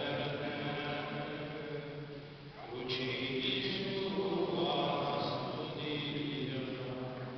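Franciscan friars' voices chanting a hymn together in a stone church, in long held phrases with a short breath about two and a half seconds in; the phrase ends near the end.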